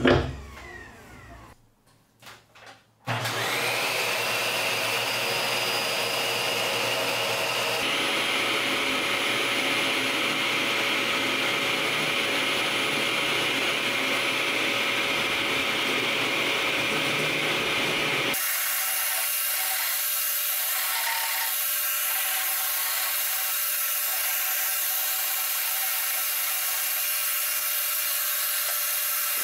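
A knock as wooden boards are handled, then a small vacuum motor starts about three seconds in, its whine rising as it spins up, and runs steadily.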